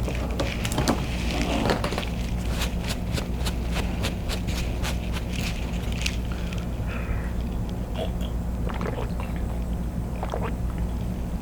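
Close-miked chewing and lip smacking while eating king crab in butter sauce: a quick run of wet mouth clicks for about the first half, thinning out later, over a steady low hum.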